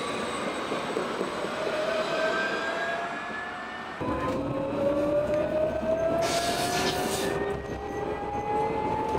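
Electric tram's traction motors whining and rising steadily in pitch as it accelerates along the track, over a running rumble of wheels on rail. The whine breaks off about four seconds in and a fresh rising whine starts, with a short high hiss partway through it.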